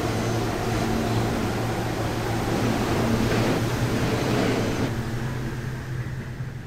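New York City subway L train running with a steady motor hum and wheel rumble. It slows toward the end, and the noise fades away over the last couple of seconds as the train comes into the station.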